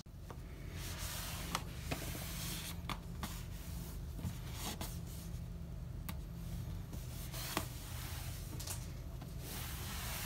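Cloth towel rubbing across a kitchen countertop, with a few light knocks scattered through it, over a low steady hum.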